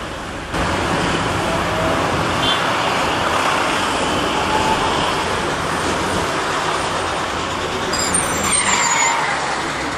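Steady city traffic noise, a continuous wash of road vehicles, growing louder about half a second in.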